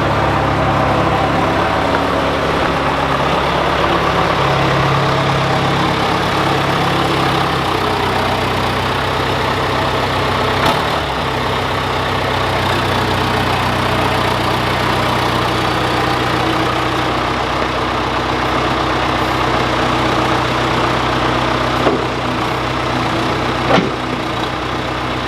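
John Deere 410C backhoe's diesel engine running steadily, with a few short sharp knocks about halfway through and near the end.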